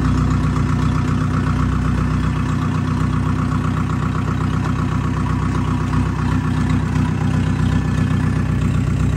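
A vehicle engine running steadily at an even speed, with a fast, regular firing pulse.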